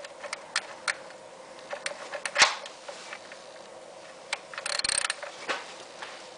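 Hand ratchet with a deep socket on a PCV valve: scattered metallic clicks, a louder knock about two and a half seconds in, and a quick run of ratchet clicks around five seconds in.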